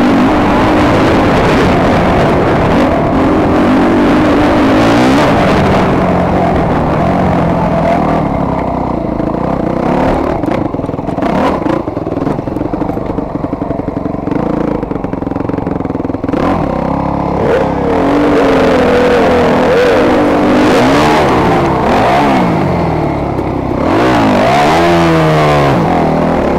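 Dirt bike engine revving hard, its pitch climbing and dropping again and again through acceleration and shifts, with quick rev swoops near the end. Clattering knocks from the ride over rough ground come through in the middle.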